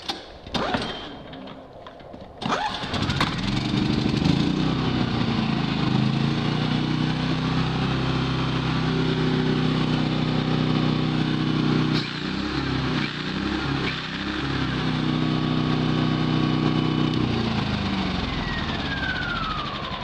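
A Champion 3100 inverter generator's single-cylinder engine is pull-started and catches about two and a half seconds in. It runs steadily, its speed rising, dipping briefly around the middle, then picking up again and easing down near the end. It is running properly again with a new control module fitted in place of the faulty one that had left it barely running.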